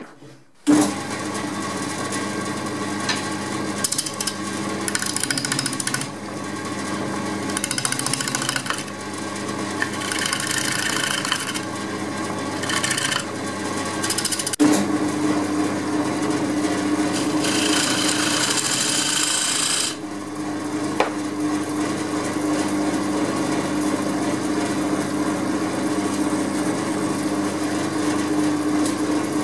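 Record Power woodturning lathe starting up about a second in and running with a steady hum, while a gouge cuts a tenon on a spinning wooden bowl blank in repeated scraping spells of one to three seconds. About halfway through there is a sharp click, after which the hum is stronger.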